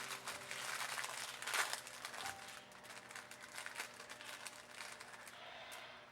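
Plastic and paper packaging crinkling and clicking as it is handled and opened, with a flurry of crackles over the first two seconds, the loudest about a second and a half in, then sparser handling noise.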